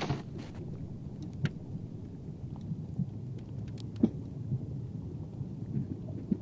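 Newly freezing sea ice cracking: a steady low rumble with scattered sharp cracks and pings, the loudest about four seconds in.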